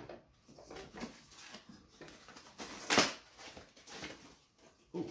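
Plastic filament spools and their packaging being handled and set into a Bambu AMS unit: scattered rustling and light plastic clatter, with one loud sharp knock about three seconds in.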